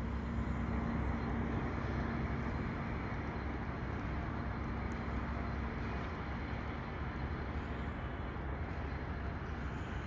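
Passing commuter train moving away after running through the station: its low rumble fades gradually, and a steady hum dies out within the first few seconds.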